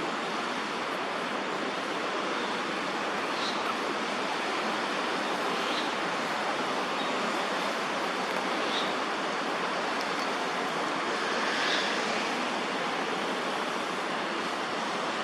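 Steady rushing outdoor background noise, with a faint short high chirp every two to three seconds.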